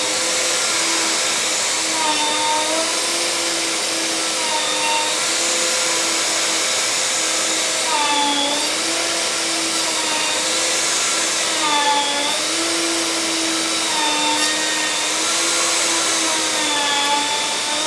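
Workshop vacuum motor running steadily, its pitch dipping briefly now and then.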